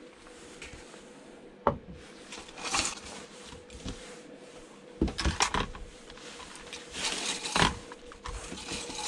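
Handling noise of scrap parts being moved on a workbench: a sharp knock about two seconds in, rustling, and a quick clatter of knocks around the middle, over a faint steady hum.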